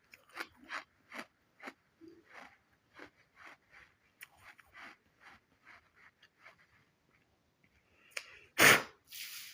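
Close-miked chewing of crunchy baked sand clay: a run of small crunches about every half second. About eight and a half seconds in comes one much louder, sudden burst.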